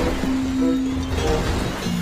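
Background music: short pitched notes over a held low note.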